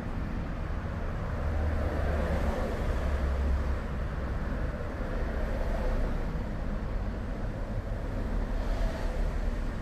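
Steady low rumble of road traffic, swelling louder between about one and four seconds in.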